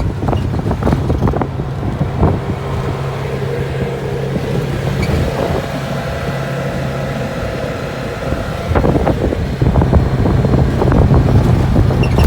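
ATV engine running steadily, with wind rumbling on the microphone. The engine note drops away for a couple of seconds past the middle, then comes back louder.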